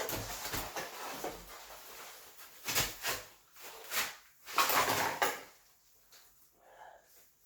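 Knocks, clunks and scraping from handling the partly assembled electric fat-tire bike as it is turned over: a few sharp knocks about three and four seconds in, then a longer scraping clatter, settling quieter near the end.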